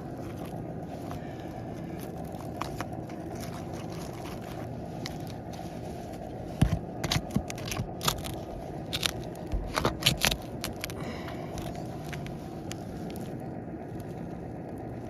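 Asphalt shingles being pried up and lifted off a roof: a cluster of sharp scrapes and crackles in the middle, over a steady background hum.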